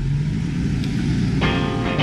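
Off-road vehicle engine running steadily. About one and a half seconds in, electric guitar music starts over it.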